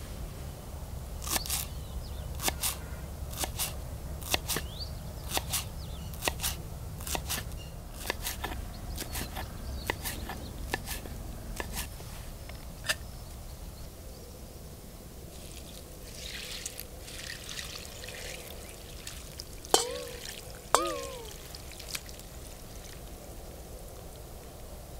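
A knife chopping fresh coriander on a wooden cutting board, about two cuts a second, often in pairs, for the first twelve seconds. Later comes a soft rushing sound, then two sharp clanks a second apart near the end, each with a brief ringing tone.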